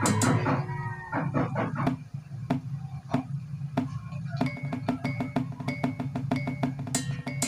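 Background music with drums and percussion on a steady beat, thinning out for a few seconds in the middle before the full beat comes back.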